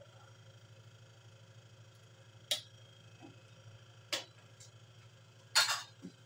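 A metal utensil clinking sharply against an aluminium wok three times, the last the loudest, as ginataang tulingan (fish in coconut milk) is stirred. A low steady hum runs underneath.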